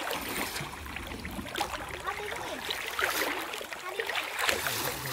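Water flowing steadily, with the faint voices of people in the background.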